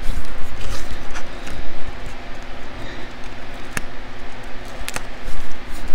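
Close paper handling and rustling as the backing liner is picked at and peeled off strips of Tear & Tape adhesive on a paper card panel, with a few sharp ticks.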